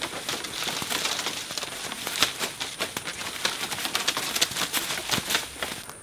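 Mulberries and leaves pattering onto a plastic tarp as the tree is shaken, with leaves rustling overhead: a dense run of light ticks that stops just before the end.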